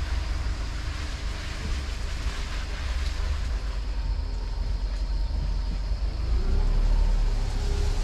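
Car driving slowly along a rough dirt forest track: a steady low engine and tyre rumble with road noise.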